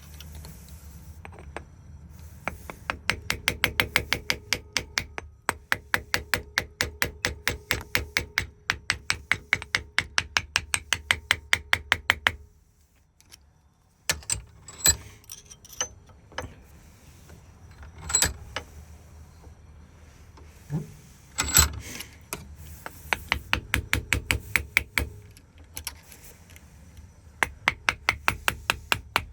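Rapid, evenly spaced metallic clicking, about four to five clicks a second, from work on a Ford lock cylinder being rekeyed; it stops for a moment, gives way to a few scattered clicks and taps, and the steady clicking starts again near the end. A low steady hum runs underneath.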